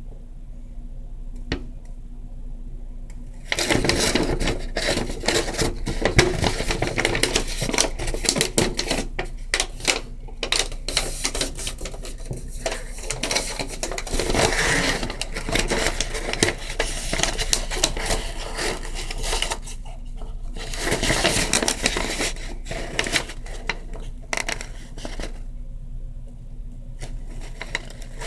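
Packaging and small plastic parts of an acrylic nail kit being handled and unpacked: dense rustling with quick clicks and taps. It starts about three and a half seconds in and pauses briefly twice.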